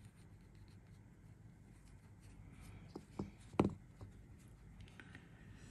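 Faint rustling of cotton wick being handled and tucked through a vape coil by fingers, with three soft knocks about three seconds in.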